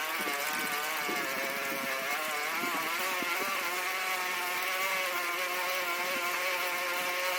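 A steady motor-like drone at one fixed pitch, wavering for the first few seconds and then holding even.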